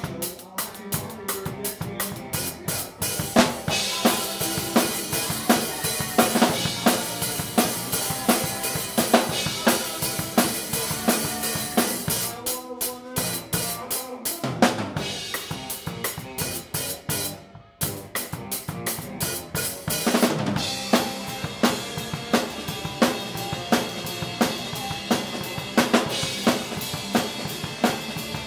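Rock band playing live, dominated by a close drum kit: snare, bass drum and cymbals driving a steady beat, with electric guitar beneath. About two-thirds of the way through the band stops for an instant, then comes back in with cymbals ringing over the beat.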